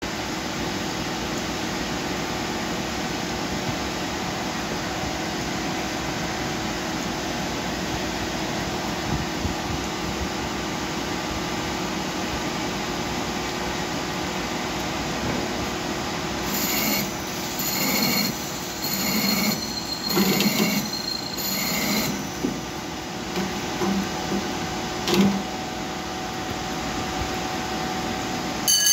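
A CNC lathe is running, with the spindle turning a metal workpiece under flowing coolant, giving a steady machine noise with a hum. In the middle, the grooving tool pecks into the part in a G75 peck-grooving cycle, giving about five short high-pitched squeals roughly a second apart.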